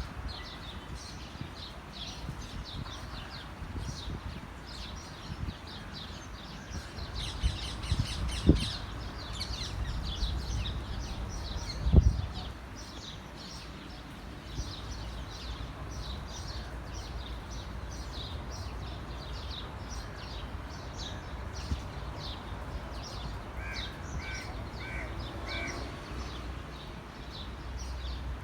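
Birds chirping steadily in many short, high notes, with another bird giving four quick, evenly spaced calls near the end. A low rumble runs underneath, and two sharp thumps come in the middle, the second one loud.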